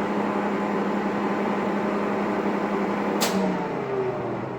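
A 1954 Cleereman 25-inch box-column drill press runs with a steady hum, driven by its 5 hp three-phase motor with the spindle geared to about 700 RPM. About three seconds in there is a sharp click, and the machine winds down.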